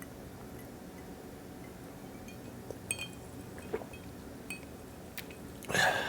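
Ice cube clinking lightly against a glass of bourbon a few times as it is tipped for a sip, followed near the end by a louder, noisier knock or rustle.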